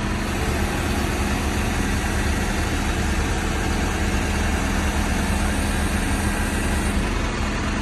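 Tow lorry's diesel engine idling steadily with a low rumble and a steady hum, which fades near the end, while its crane holds a motorbike suspended.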